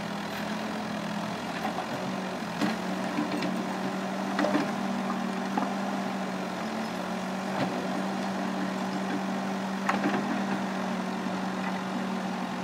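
L&T Case backhoe loader's diesel engine running at a steady hum while the backhoe arm works, with a few scattered sharp knocks and clanks over the top.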